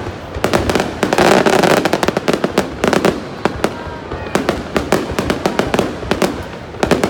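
Aerial fireworks display: a rapid, continuous run of bangs and crackles from shells bursting overhead, densest and loudest about a second in.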